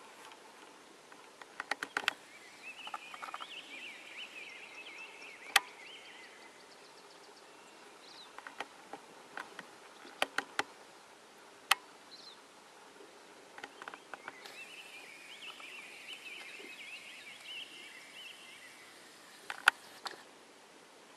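A songbird's rapid chattering song comes twice, for a few seconds each time, with sharp clicks now and then, some single and some in quick runs.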